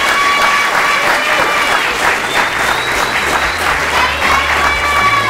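Theatre audience applauding steadily, with music playing underneath in held notes; a low bass comes in about halfway through.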